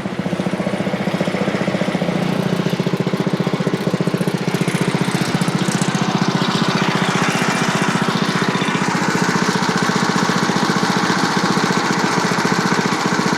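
Small gasoline engine of a Frontier OS23 portable sawmill running steadily, with a rapid, even firing pulse.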